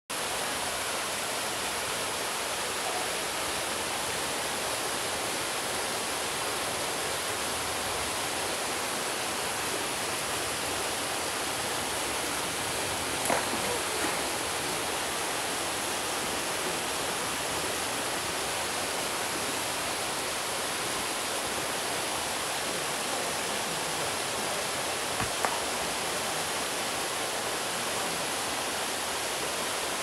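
Small waterfall falling onto rock and into a pool: a steady, even rush of splashing water. A few brief knocks stand out over it, twice around the middle and twice again later on.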